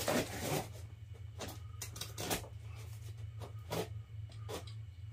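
Knife blade slitting packing tape and scraping along a cardboard box in a series of short rasping strokes, about half a dozen, the loudest right at the start. A steady low hum runs underneath.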